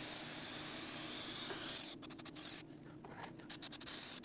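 Aerosol spray adhesive hissing steadily from the can and stopping about two seconds in, followed by a few faint scratchy rubbing clicks.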